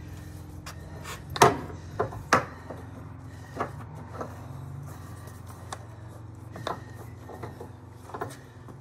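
Sharp metallic clicks and knocks as fire hose couplings and a nozzle are handled and connected in a bumper hose compartment, the loudest about a second and a half in, over a steady low hum.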